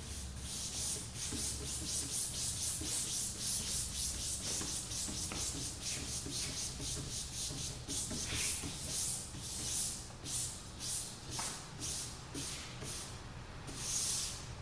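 Hands rubbing and sweeping over a poker table's cloth to smooth it flat, making repeated swishing strokes of fabric. The strokes come quickly, about three a second, then slow and space out, with a last quick flurry near the end.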